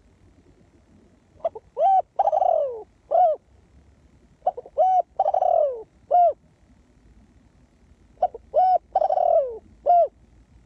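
Spotted dove cooing: three calls a few seconds apart, each made of short coos around one long coo that falls in pitch.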